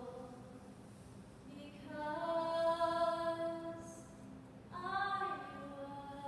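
A young woman singing solo, holding long notes: a quieter stretch at first, then a long held note, and another entering about five seconds in.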